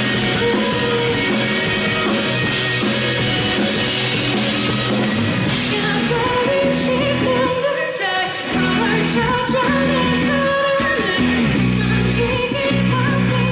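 Live rock band playing a song: a singer's voice over electric guitar, bass and drums, with the vocal line coming in about halfway through.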